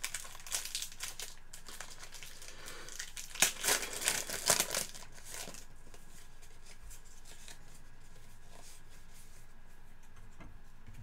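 Crinkling of plastic trading-card packaging being handled, in irregular bursts that stop about five and a half seconds in.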